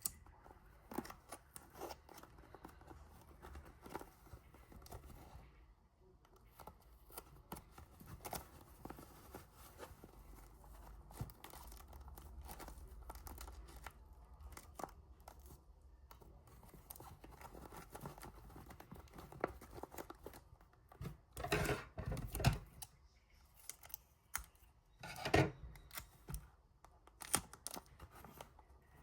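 Paper being handled, cut and torn: scattered rustles, snips and tearing sounds, with louder crinkling bursts about twenty-two and twenty-five seconds in.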